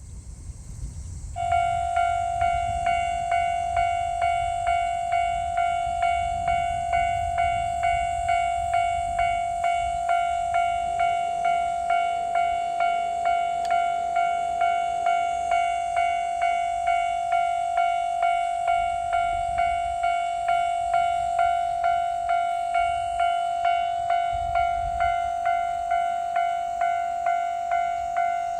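Japanese level crossing warning bell starting about a second in and ringing steadily at about two strikes a second, one clear ringing tone per strike: the signal that a train is approaching and the crossing is closing.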